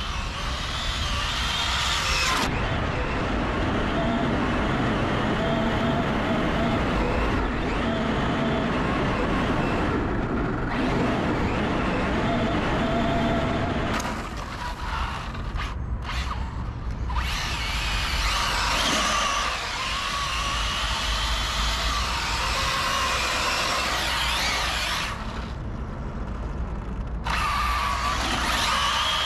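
Arrma Felony 6S electric RC car's brushless motor whining, rising and falling in pitch as it accelerates and drifts, with its tyres hissing on the paving stones and wind rumbling on the microphone. The sound changes abruptly several times.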